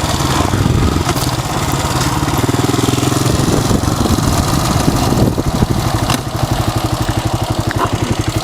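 Honda XL250S air-cooled single-cylinder four-stroke engine running and easing off, then settling into an even, rapidly pulsing idle from about five seconds in.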